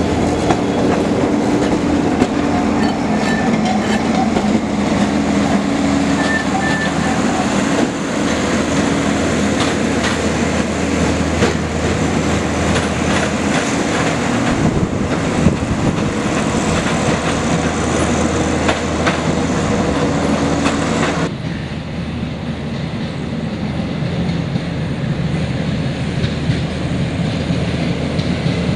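Vintage electric tram running on steel rails: wheels clattering over the track, with a steady hum. About two-thirds of the way through, the sound changes suddenly and drops in level.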